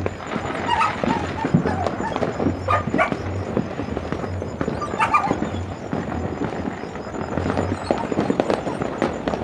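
A dog barking a few times over a steady crackle of firecrackers and fireworks going off.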